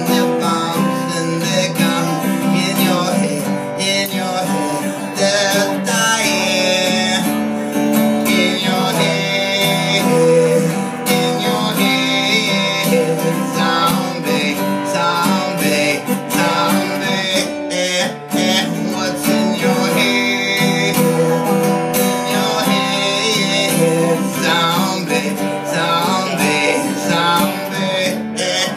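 Live solo performance: a strummed acoustic guitar playing steady chords, with a man singing phrases into the microphone that come and go over the strumming.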